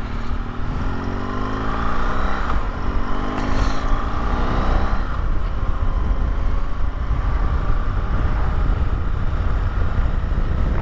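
BMW R1200GS boxer-twin engine pulling away and accelerating, its pitch rising through the first gears for about five seconds. After that, steady engine and wind noise at riding speed.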